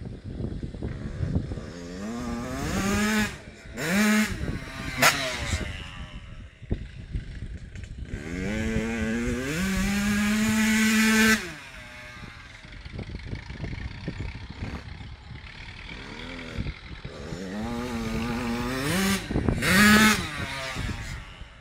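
Yamaha YZ85's two-stroke single-cylinder engine revving hard in bursts, the pitch climbing and dropping back at each gear change. A long high-revving pull about eight to eleven seconds in cuts off abruptly as the throttle shuts; the engine runs quieter for a few seconds, then revs up through the gears again near the end.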